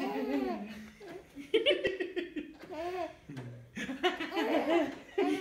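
A baby laughing in repeated bouts of high, bobbing giggles, with a man's low voice briefly in between, about three seconds in.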